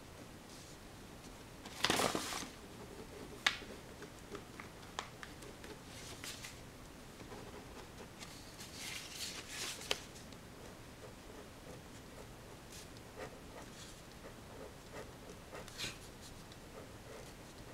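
Low room tone broken by scattered small clicks and taps, with two brief rustles, the louder about two seconds in and another around nine seconds in.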